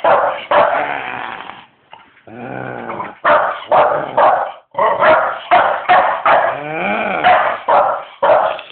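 Staffordshire bull terrier puppy barking repeatedly in short, sharp barks. Twice, about two seconds in and again near seven seconds, it gives a longer drawn-out call that wavers and bends in pitch.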